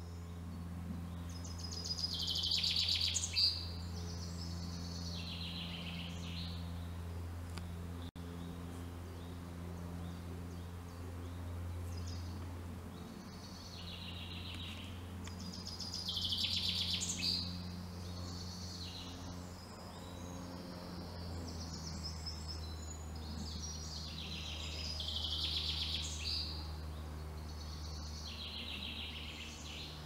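Songbird singing in short trilled phrases of one to two seconds, with gaps of several seconds; three phrases stand out as louder. A steady low hum runs underneath.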